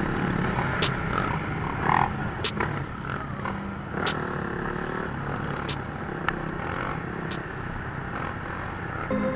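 Dirt bike engines running on the move, recorded from a riding bike, with several short sharp clicks.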